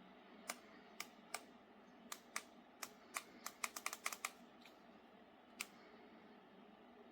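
A series of sharp, irregular clicks, a quick run of them about halfway through, over a faint steady background noise.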